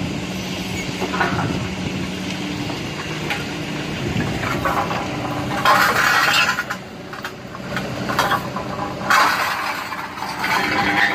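LiuGong forklift running, its engine a steady low hum that fades after about four seconds, with loud bursts of clinking and rattling about six and nine seconds in.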